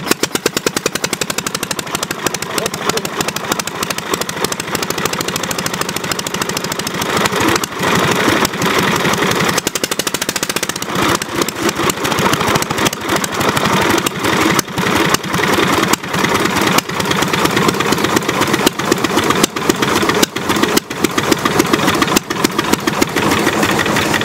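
Late-1920s Buda railcar (speeder) engine, air-cooled, running with a rapid firing beat that speeds up and slows as its spark timing and throttle are worked by hand.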